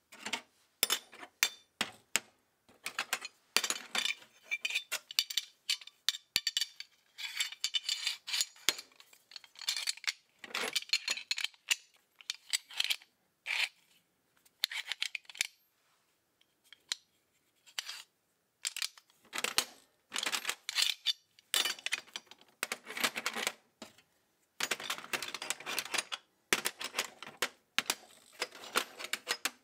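Steel sockets and a ratchet handle clinking and scraping against one another and the metal tin as they are picked up and set back into a vintage socket set. The sound comes in irregular bursts of clinks separated by short pauses.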